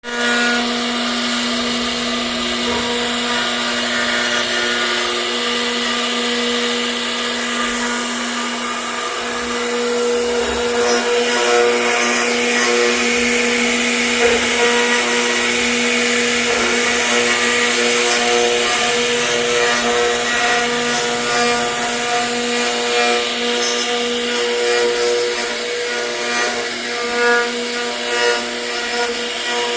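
CNC router spindle running at a steady pitch while its bit carves wood, with a dense cutting hiss that grows a little louder about ten seconds in.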